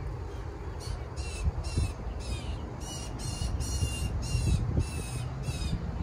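Blue jay giving a rapid series of short calls, about three a second, starting about a second in, with wind rumbling on the microphone underneath.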